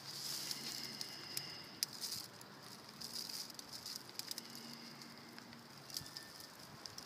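Faint crackling rustle of plastic grocery bags, with scattered small clicks and knocks as the scooter's under-seat storage compartment is opened.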